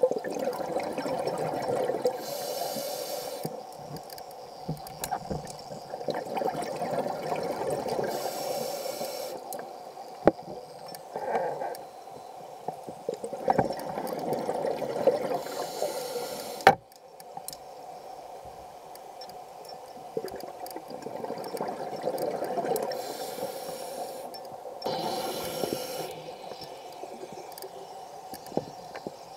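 Scuba diver breathing through a regulator, recorded underwater: exhaled bubbles rumbling and gurgling in long stretches, with short hissing inhalations between them every several seconds.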